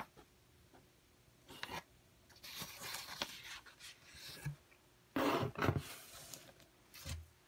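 Old magazines being handled: paper and glossy pages sliding and rustling against each other and a cardboard box, in several short scraping rustles, the loudest about five seconds in.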